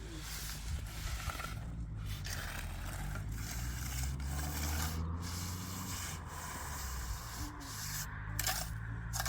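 Irregular scraping and rubbing, with a few short sharp knocks scattered through it, over a steady low hum.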